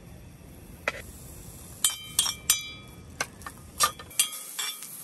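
About ten sharp clinks and taps of metal cookware and utensils, several ringing briefly, most of them between two and four and a half seconds in. A low rumble runs underneath and cuts out about four seconds in.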